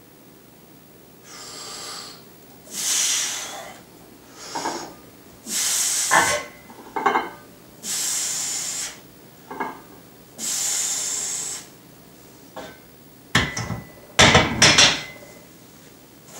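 Heavy, forceful breathing of a man bench pressing a heavy barbell: about five hissing breaths, each about a second long, spaced through the set. Near the end comes a cluster of loud knocks, the loudest sounds here.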